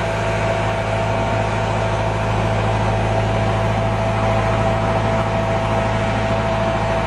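Large engine running steadily at a constant speed: a low drone with a thin, steady whine above it.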